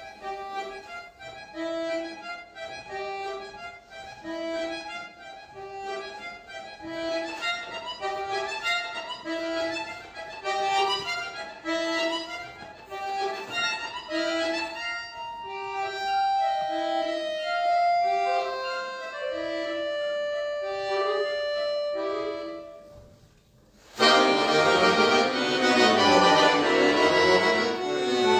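Solo accordion playing a soft passage: a repeating two-note figure under a slow melody, fading out a little over twenty seconds in. After a short pause, loud full chords come in suddenly.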